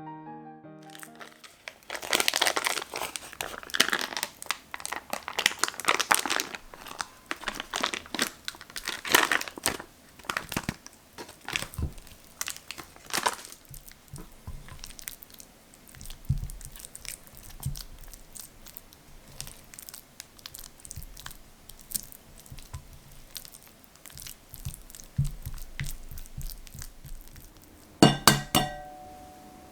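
Packaging crumpled and crinkled by hand as it is unwrapped, densely for about a dozen seconds, then quieter handling, with a brief clink near the end.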